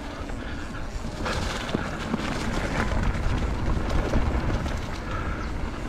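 Wind noise on the microphone of a mountain bike riding a dirt trail, with the bike rattling and scattered small clicks and knocks from the ground.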